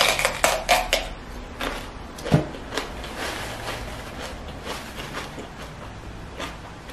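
A raw red bell pepper bitten and chewed: a quick run of crisp crunches in the first second, a sharper crunch a little after two seconds, then softer chewing with scattered small crunches.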